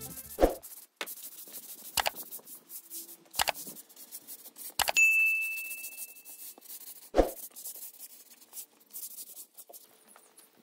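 A handful of sharp knocks, about five, spaced a second or two apart; one about halfway through leaves a short, clear metallic ring.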